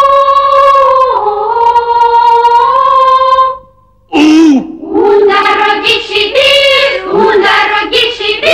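Children's choir singing long held notes in unison, with one slide down in pitch about a second in. It breaks off after about three and a half seconds, and after a short pause singing starts again with quicker notes that swoop up and down.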